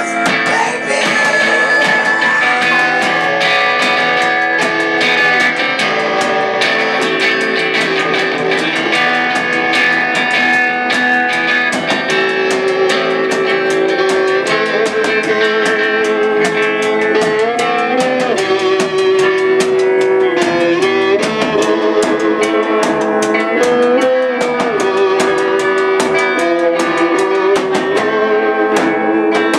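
Live rock band playing loudly: electric guitar and drum kit, with a held lead line that bends in pitch now and then.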